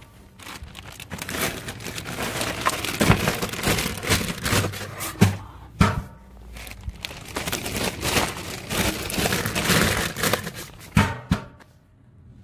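Plastic rubbish bags crinkling and rustling as they are handled and pushed into waste-sorting chutes, with a few sharp knocks.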